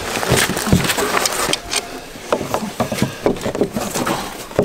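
Irregular clicks and knocks of hard plastic and metal as channel-lock pliers grip and turn the plastic nut of a stock tank heater's fitting against the wall of a plastic stock tank.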